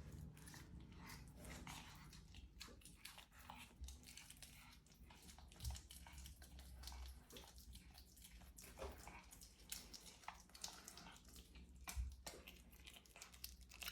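Faint chewing and crunching from a pet eating, many small irregular clicks, with a low thump about halfway through and another near the end.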